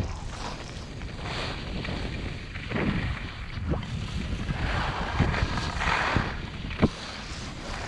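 Wind rushing over the microphone while moving downhill over fresh snow, with swelling swishes of turns sliding across the snow and a few short sharp clicks, the loudest about seven seconds in.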